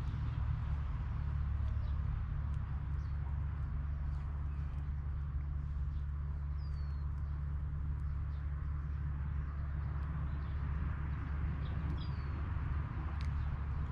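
A few faint, high, short bird chirps that sweep downward, about seven and twelve seconds in, over a steady low rumble.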